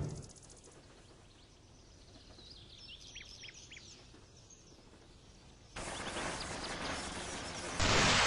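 Quiet outdoor ambience with a scatter of short, high bird chirps. About six seconds in, a steady hiss of noise cuts in suddenly and then jumps louder near the end.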